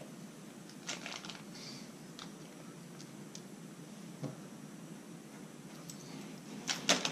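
Hands handling small fishing tackle and a plastic zip-lock bag: a few faint scattered clicks and rustles, with a quick run of louder clicks near the end.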